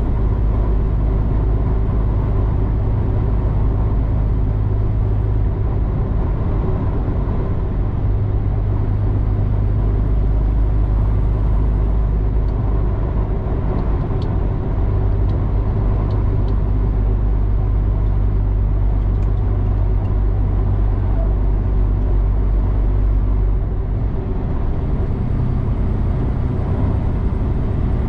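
Semi-truck engine drone and tyre-and-road noise heard inside the cab while cruising at highway speed. The deep rumble weakens near the end.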